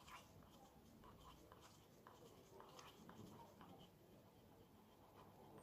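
Faint, irregular scraping and light tapping of a wooden stir stick against the inside of a paper cup as resin is stirred.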